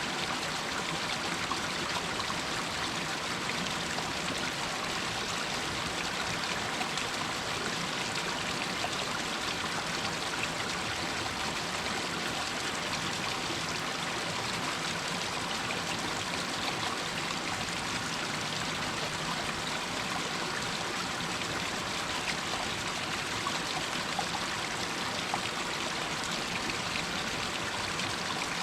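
Water running and trickling down a rocky hillside in a small stream, a steady splashing rush.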